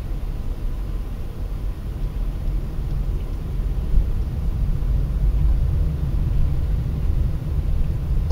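Low, steady rumble of a car's engine and tyres heard from inside the cabin through a dashcam's microphone as the car drives slowly in traffic, with one brief bump about four seconds in.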